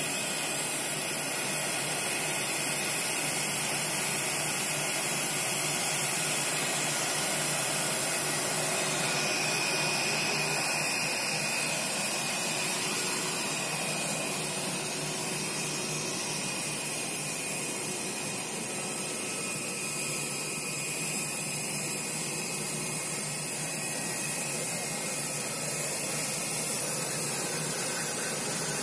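Jet airliner's turbofan engines running at taxi power: a steady rushing hiss with a high whine on top.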